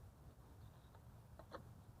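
Near silence: a faint steady low hum, with two or three faint light clicks about one and a half seconds in.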